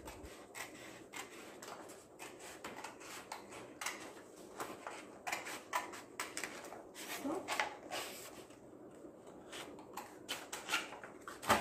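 Scissors cutting a thin strip from a sheet of black chart paper: a run of short, irregular snips.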